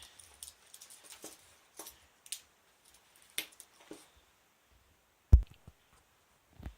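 Metal watches being pushed into a cloth pocket: a series of small clicks and rustles, then a single heavy low thump about five seconds in and a softer one near the end.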